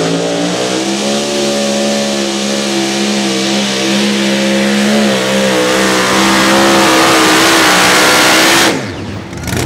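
Super modified two-wheel-drive pulling truck's supercharged engine running at full throttle under load as it drags the pulling sled, its pitch holding mostly steady with slight wavering. Near the end it cuts off suddenly as the pull ends.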